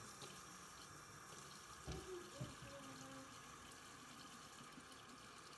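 Tap water running faintly and steadily into a stainless-steel sink, with a soft knock about two seconds in.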